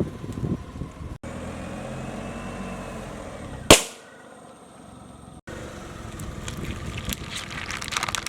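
Car tyre rolling over objects to crush them, with a low running rumble, one loud sharp pop as something bursts under the wheel a little past the middle, and a run of crackling crunches near the end.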